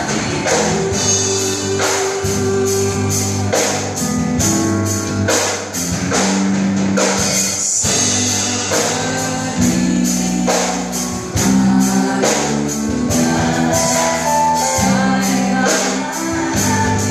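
Live band playing a Christmas worship song: singing over electric guitar, bass guitar, keyboard and a drum kit keeping a steady beat.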